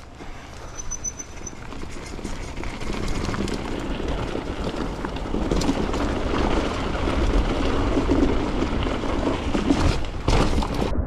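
Mountain bike rolling fast down a dirt and gravel trail: tyres crunching over stones and the bike rattling over the bumps, growing louder as speed builds over the first half, with a low rumble of wind on the microphone.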